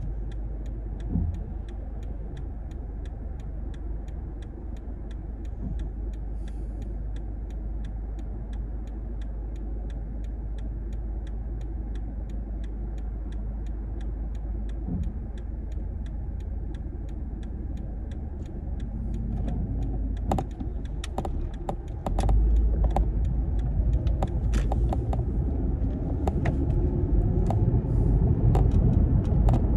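Cabin sound of a 2012 Toyota RAV4 driving: a steady low road and engine rumble, with a turn signal ticking in a quick even rhythm through the first two-thirds. About 22 seconds in, the rumble suddenly gets louder as the car picks up speed.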